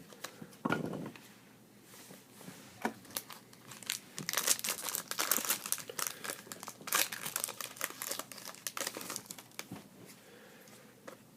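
Crinkling and tearing of a trading-card pack wrapper being opened and handled, a dense run of crackling from about four seconds in to near the end, with a few scattered clicks before it.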